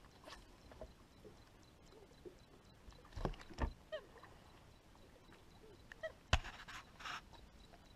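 Handling noise as a largemouth bass is unhooked from a landing net on a boat deck: faint rustling with a few knocks, the loudest a little after six seconds in.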